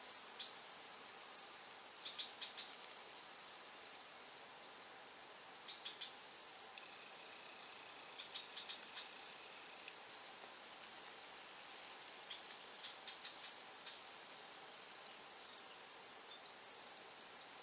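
Insects trilling steadily in the vegetation, a continuous high-pitched shrill in two layers, one higher than the other.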